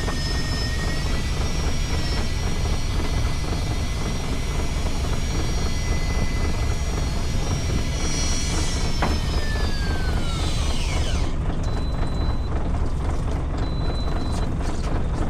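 A boat's engine runs with a steady low rumble. Over it, a high motor whine holds steady, then falls in pitch and stops about ten seconds in.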